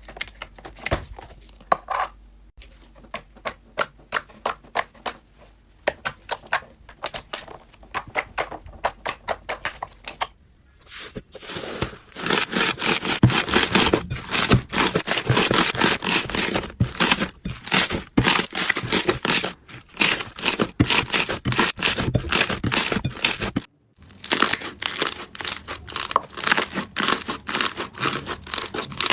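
Slime being squeezed and poked by hand, giving runs of sharp crackling clicks and pops: sparse at first, very dense from about a third of the way in, then a sudden cut and the crackling resumes in a new clip.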